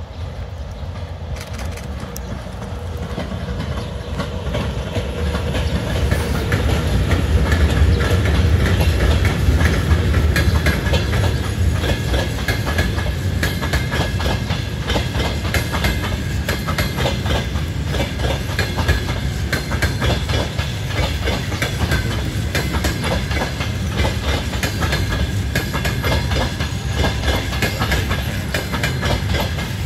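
ChS7 electric locomotive drawing near and passing, followed by a long rake of passenger coaches rolling by, their wheels clacking rapidly over the rail joints. The sound builds over the first eight seconds or so, then holds steady as the coaches pass.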